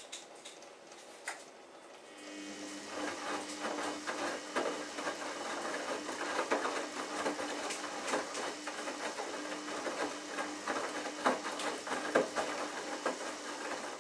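Samsung Ecobubble front-loading washing machine drum starting to turn about two seconds in and tumbling the wet laundry for roughly twelve seconds, then stopping. A steady motor tone runs under irregular splashing and slapping of the wet load against the drum.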